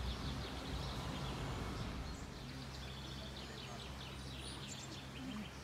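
Songbirds chirping in the trees, quick clusters of short high notes from about two seconds in, over a low steady outdoor rumble.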